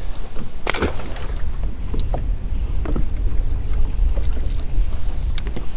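Wind buffeting the camera microphone on an open boat, a steady low rumble, with a few light clicks and knocks as fishing tackle is handled.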